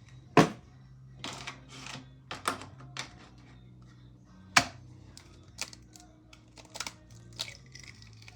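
Eggs being cracked against the edge of a bowl: two sharp cracks about four seconds apart, with lighter taps and short scraping clatter between.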